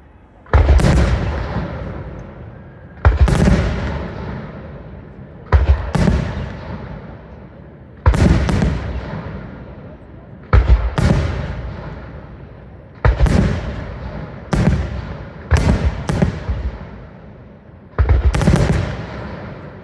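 Fireworks display: about nine loud bangs, one after another, each trailing off in a fading rumble. They come roughly every two and a half seconds at first and more quickly near the end.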